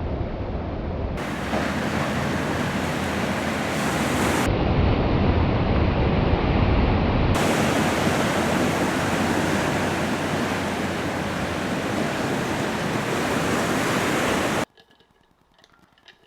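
Steady rush of ocean surf with wind on the microphone. Its tone changes abruptly a few times, and it cuts off suddenly near the end.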